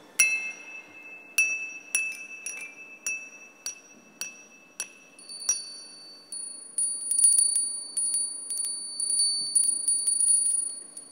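Glassware struck with thin sticks, about nine separate bright ringing strikes roughly every half second. About five seconds in, this gives way to rapid tapping that keeps a high, steady ring going, louder than the single strikes and fading at the very end.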